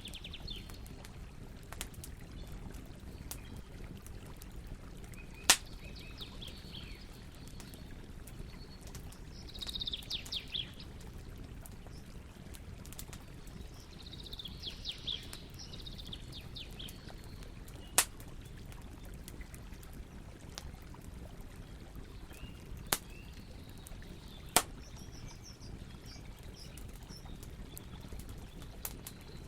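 Campfire burning with a steady low rumble and a few sharp, loud pops of the wood, while birds chirp several times in the background.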